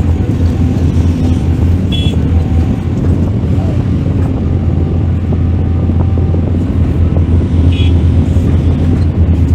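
Mining excavator's diesel engine running steadily with a constant low drone, with two short high chirps, one about two seconds in and one near the end.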